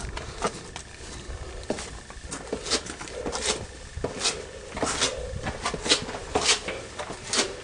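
Footsteps scuffing and crunching on a gritty stone floor, roughly two a second and uneven, over a low rumble.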